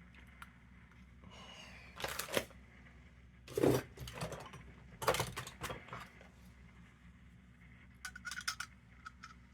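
Hands working a new 7/8-inch wick into a kerosene lantern's burner. There are a few short scraping, rustling bursts, the loudest about three and a half seconds in, then a run of light metallic clicks near the end.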